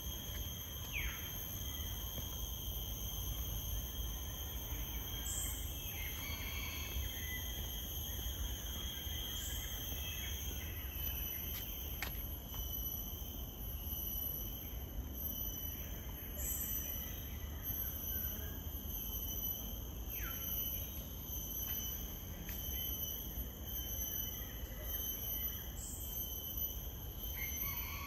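Tropical rainforest insects droning steadily in several constant high-pitched tones, with two descending whistled bird calls, one about a second in and one about twenty seconds in, over a low background rumble.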